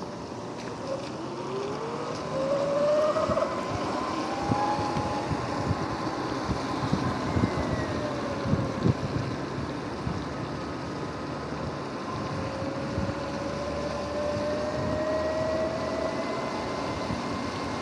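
Electric bike riding on wet pavement: the motor's whine rises and falls in pitch as it speeds up and slows, over tyre hiss and wind on the microphone. A few knocks from bumps in the road come around the middle.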